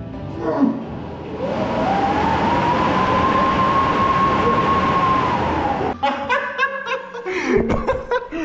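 Wattbike's air-braked flywheel fan spinning up under an all-out sprint: a loud rushing whoosh with a whine that rises and then holds at a steady pitch for about four seconds. It stops abruptly about six seconds in.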